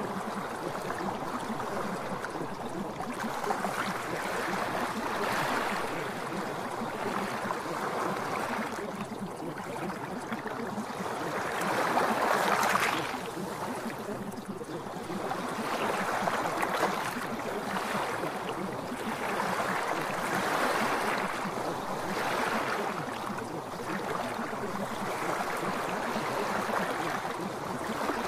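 Rushing water sound, an even noise that swells and eases every couple of seconds and is loudest about twelve seconds in.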